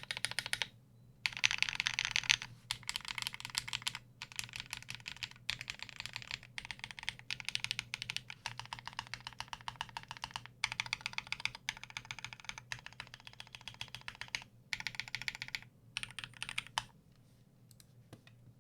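Typing on a custom mechanical keyboard with lubed Akko Rose switches, an aluminium plate, a tape mod and PBT pudding keycaps. Quick runs of keystrokes are broken by short pauses, and the typing dies away near the end.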